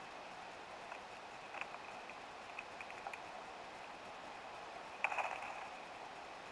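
Small taps and clicks of a Steller's jay handling in-shell peanuts on a log, then a short wing flutter about five seconds in as the jay takes off, over a steady faint hiss.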